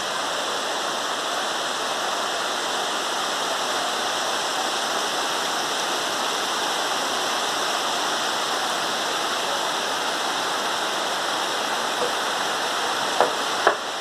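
Heavy rain falling steadily, an even hiss that holds level throughout, with a couple of sharp taps near the end.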